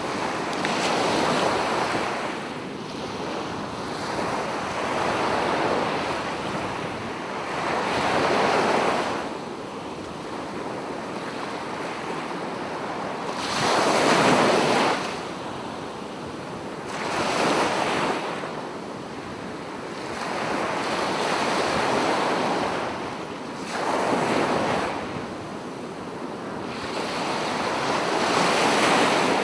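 Sea waves breaking and washing up a sandy beach, one surge of surf every three to four seconds between steady hiss.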